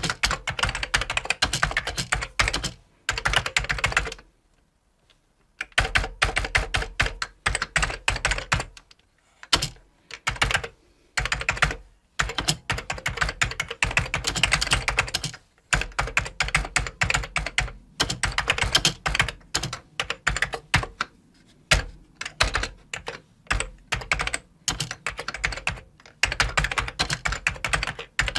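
Typing on a computer keyboard: quick runs of key clicks broken by short pauses, the longest a little over a second, about four seconds in.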